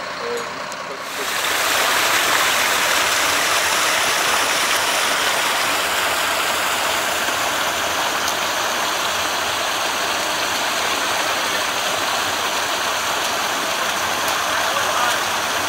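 Steady rushing of water escaping from a burst water main, starting suddenly about a second in.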